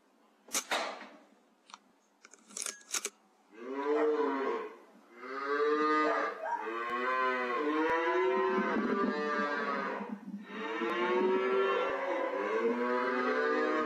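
Cattle mooing loudly and almost without a break from about three and a half seconds in: long, overlapping calls that rise and fall in pitch. A few sharp clicks or knocks come before, in the first three seconds.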